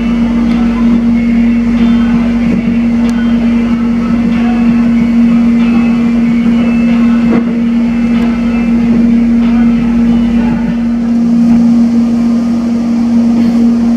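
Running noise heard inside an electric airport train in motion: a steady hum at one pitch over a continuous rumble of wheels and track.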